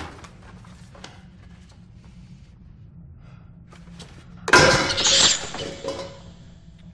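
Sudden loud crash of breaking glass about four and a half seconds in, trailing off over a second or so. Before it there are only faint ticks and creaks.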